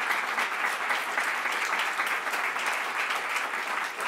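Seated audience applauding steadily: many hands clapping together.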